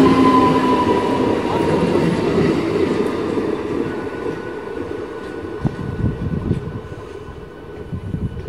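MEDHA three-phase electric multiple unit local train running past. A whine from its traction equipment fades over the first couple of seconds, then the wheels rumble and knock over the rail joints as the train moves away and the sound dies down.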